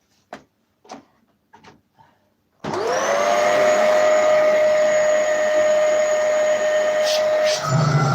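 A few short clicks, then a Dyson Animal vacuum cleaner's motor switches on about two and a half seconds in, its whine rising quickly and settling into a steady run. It is running after its cyclones, bin and gasket were cleared of a blockage, with its suction restored.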